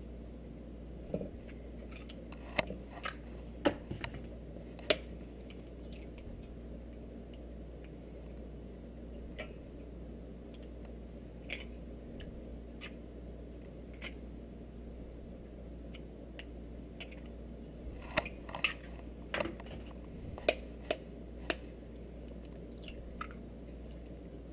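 Sharp taps and clicks of eggshells being cracked with a knife and knocking against a stainless steel mixing bowl while egg yolks are separated, in two short clusters: one in the first few seconds and another about three-quarters of the way through. A steady low hum runs underneath.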